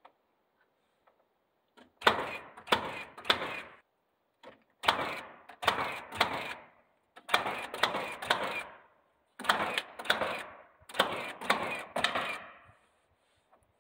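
Nail gun firing nails through shiplap siding boards into the wall framing: five quick bursts of about three sharp shots each, roughly half a second apart.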